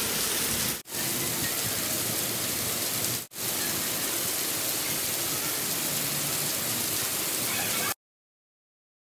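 Heavy rain falling steadily on a concrete elevated light-rail guideway, an even hiss of rain splashing on the track bed. It breaks off for an instant twice and cuts off abruptly near the end.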